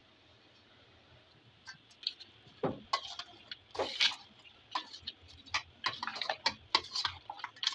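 Raw meat, chopped onions and spices being mixed in a metal pot: irregular clicks, scrapes and wet rustles that begin about two seconds in.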